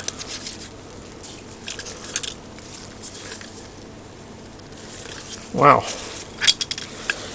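Faint clicks and rustling of rusty parts and debris being handled on a workbench, with a few sharper clicks near the end.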